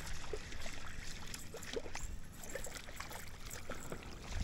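Faint, irregular splashing and dripping water from a hooked fish thrashing at the surface as it is reeled toward the kayak, over a low wind rumble on the microphone.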